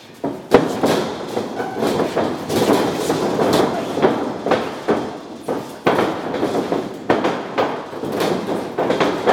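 Light sparring in a boxing ring: irregular sharp thuds of boxing gloves landing and bare feet stepping and shuffling on the ring canvas, about ten hits, the loudest about half a second in.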